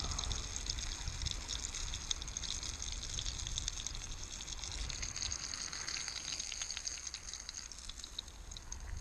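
Fish pieces frying in a pan on a portable gas stove, a steady sizzle with fine crackles spitting through it. A low rumble runs underneath.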